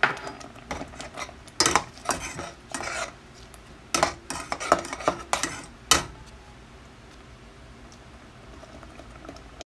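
Slotted metal spatula scraping and knocking against a stainless steel saucepan while stirring a thick sauce. The scrapes come in an irregular run and stop about six seconds in.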